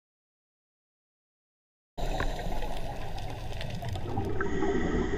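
Silence for about two seconds, then underwater sound cuts in abruptly, picked up through a GoPro Hero 4 Black's waterproof housing: a steady rush of water noise with many small clicks and crackles.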